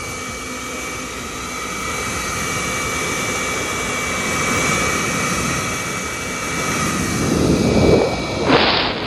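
Blow dryer running steadily, a whine over rushing air, as it blows through a puppy's fur. Near the end the air rush grows louder in two surges.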